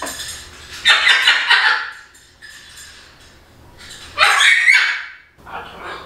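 Verde macaw, a Scarlet and Buffon's macaw cross, squawking loudly in two bursts, about a second in and again about four seconds in, each lasting about a second.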